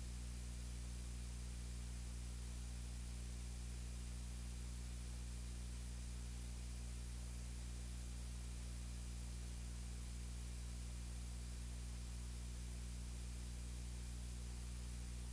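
Steady electrical hum with a faint hiss, unchanging throughout; no speech or other sound comes through.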